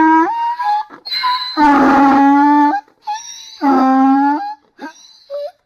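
Donkey braying: a repeated hee-haw, thinner, higher intake notes alternating with three loud, lower, drawn-out exhaled notes, trailing off into short, quiet gasps near the end.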